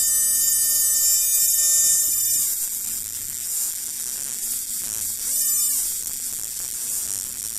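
Electric buzzing of a spark-plug tester firing used spark plugs. A steady buzz changes about two and a half seconds in to a high hiss of sparking.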